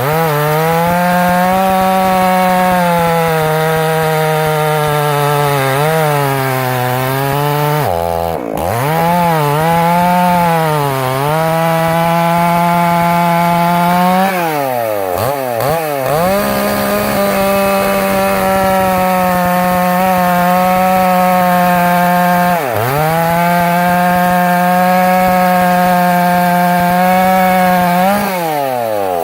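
Echo CS-800P 80.2 cc two-stroke chainsaw with a 36-inch bar running at high revs while cutting through old, very hard cured oak. Its pitch holds steady, then sags and climbs back several times.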